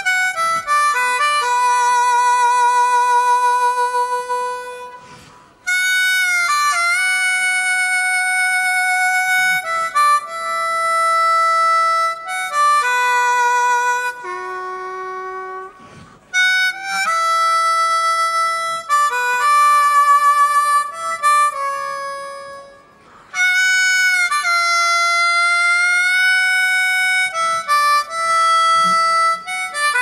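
Solo blues harmonica played into a microphone: long held chords and single notes, some bent in pitch, with short breaks about five, sixteen and twenty-three seconds in.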